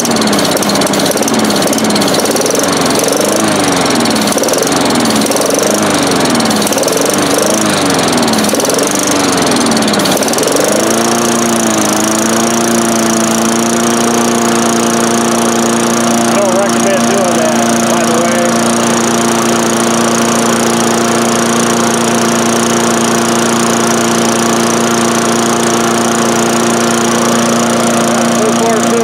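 Craftsman 4.5 hp push mower's single-cylinder engine running. For the first ten seconds its speed surges up and down about once a second, then it settles into a steady, even run.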